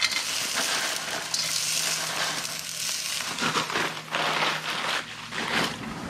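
Frozen peas poured from a crinkling plastic bag into a hot carbon steel wok of fried rice, sizzling in the oil.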